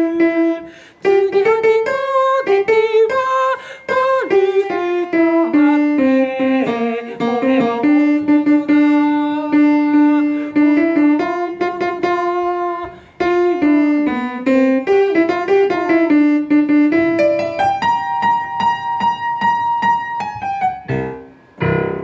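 A keyboard playing a single-line melody in held notes, with a short noisy burst near the end.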